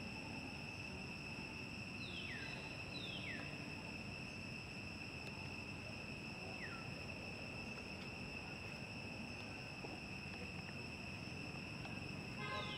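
Steady, high-pitched drone of insects, with a few short falling calls: two about two and three seconds in, one near seven seconds, and a quick cluster of calls near the end.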